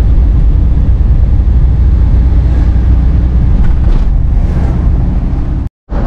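Steady low rumble of a car's engine and tyres on the road, heard from inside the cabin while driving. The sound cuts out abruptly for a moment near the end.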